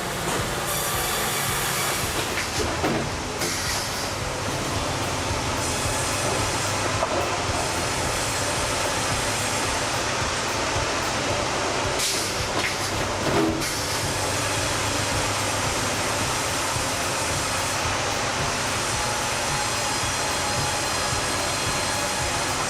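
Sawmill machinery running steadily: a twin-blade band saw rig with its log carriage travelling on rails, a continuous mechanical rumble and hiss with a few short knocks.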